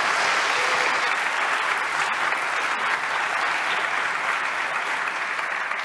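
Audience applauding a speaker's introduction, steady and then tapering off near the end.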